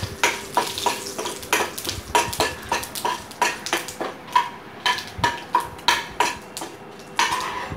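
Steel ladle stirring a tempering of chillies and curry leaves in oil in a kadai, scraping and knocking against the metal pan about three times a second, some knocks leaving a short ring.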